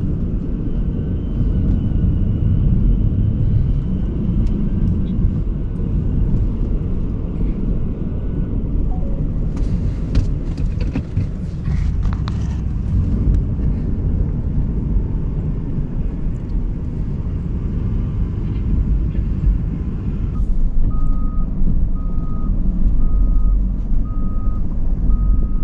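Snowplow truck running with a steady low engine rumble while driving through deep snow. About twenty seconds in, a backup alarm starts beeping at about one and a half beeps a second.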